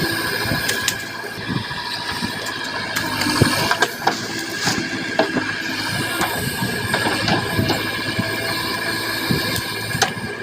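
Diesel engine of a JCB 3DX backhoe loader running steadily under work, with scattered knocks and clanks, a few of them sharp.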